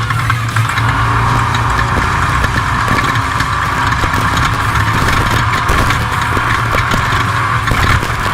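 Off-road race vehicle's engine running steadily as it drives the desert course, heard from inside the car over the intercom with a constant hiss. Frequent knocks and rattles come from the chassis over rough ground.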